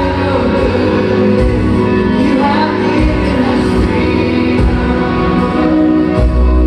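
Music: a song with singing over a full accompaniment.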